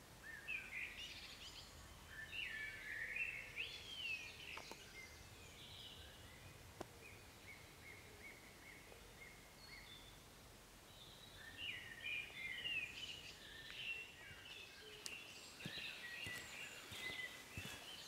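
Woodland songbirds singing: quick warbling phrases in two bouts, with a thin repeated note between them. A few faint clicks come near the end.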